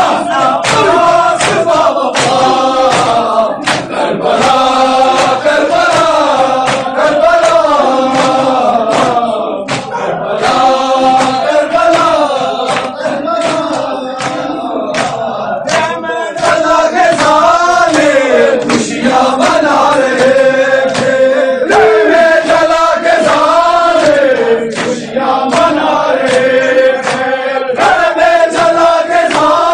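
A large group of men chanting a Muharram mourning lament (noha) together, with sharp, repeated slaps of hands on chests (matam) beating in time.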